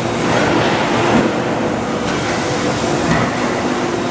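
Steady, loud factory machinery noise: the hum of a hydraulic press's power unit with a constant drone under general metal-shop clatter.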